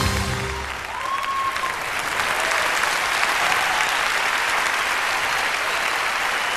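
Circus audience applauding as the act finishes: the music stops about a second in and the applause swells and holds steady, with a brief cheer from the crowd early in the applause.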